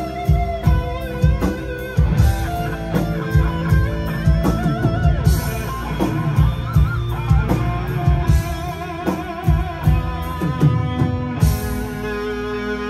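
Live rock band playing an instrumental passage: distorted electric guitars over a drum kit's steady beat, amplified through the venue's PA, with a long held note near the end.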